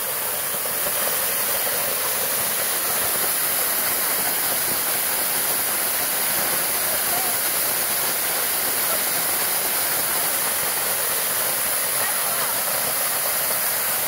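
Narrow waterfall pouring down a rock face onto a shallow rocky pool: a steady, even rush of falling water.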